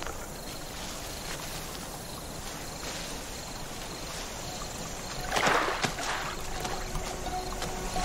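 Steady trickling and lapping of shallow running water. Faint high chirps repeat throughout, and a brief louder rush of noise comes about five and a half seconds in.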